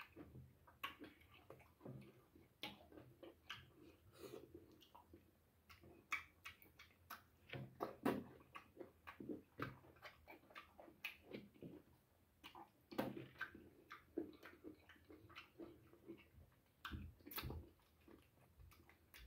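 Faint, irregular chewing and lip-smacking on goat-head meat, with soft wet clicks as the meat is pulled apart by hand and eaten.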